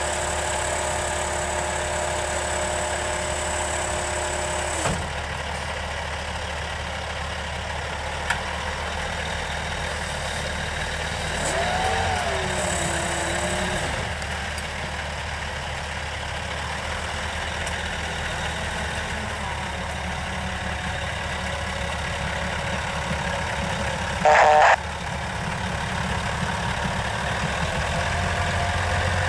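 Freightliner hi-rail dump truck's diesel engine idling steadily, with a brief rising-and-falling whine midway and one short, loud burst near the end.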